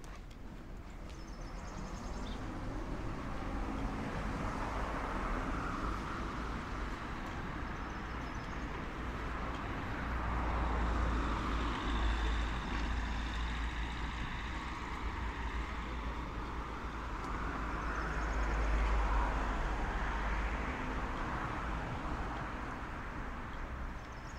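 Road traffic: cars passing on a nearby street, their tyre and engine noise swelling and fading several times over a steady low rumble.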